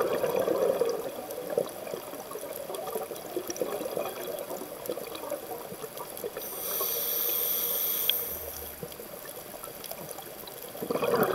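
Scuba regulator breathing heard underwater. Exhaled bubbles gurgle out at the start and again near the end, and a hissing inhalation through the regulator comes in the middle.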